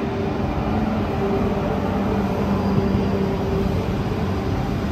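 Renfe Class S120 electric high-speed train running: a steady rumble with a low, even hum.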